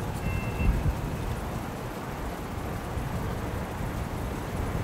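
Cars driving past over the railway level crossing, a low tyre and road rumble that dies down around two seconds in and builds again near the end as the next car comes through.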